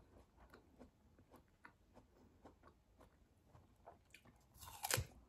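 Faint chewing of crisp pear flesh, then a crunchy bite into a whole pear near the end.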